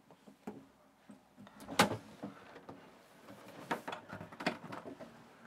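Motorhome shower cabin doors being opened, with a series of clicks and knocks, the loudest about two seconds in.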